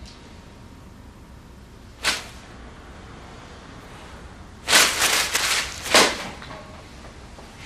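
A newspaper's paper rustling as it is handled: one short rustle about two seconds in, then a longer crackling rustle around five seconds and another brief one just after.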